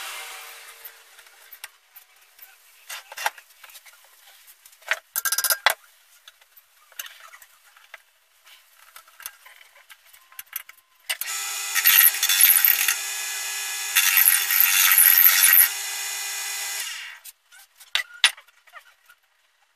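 Clicks and knocks of pen parts and lathe fittings being handled. About eleven seconds in, a wood lathe runs for some six seconds with a high, steady whine, dipping briefly midway, before shutting off.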